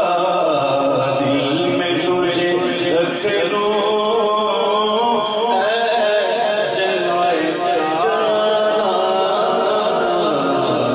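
A man singing a naat in Urdu into a microphone, drawing out long held notes that bend and waver.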